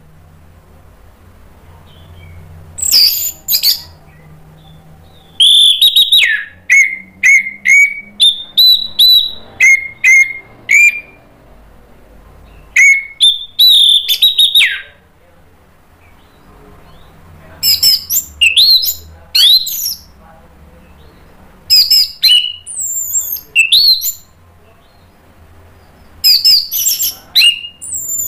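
Orange-headed thrush (anis merah) singing loudly in bouts of quick whistled phrases, several notes sliding down in pitch, with short pauses of a second or more between bouts.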